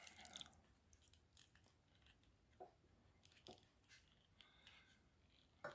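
Near silence with a few faint, scattered clicks and scrapes: a thin metal blade and fingers handling the small plastic case of a touch lamp's control module that has just been pried open.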